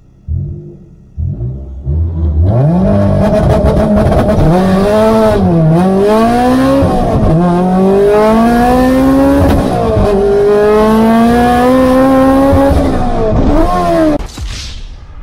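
Turbocharged Honda Prelude four-cylinder engine at full throttle on a drag-strip pass, heard from inside the cabin. A couple of short revs come first, then the engine pulls hard with its pitch climbing through the gears and dropping at each of about three shifts, and it is lifted off near the end.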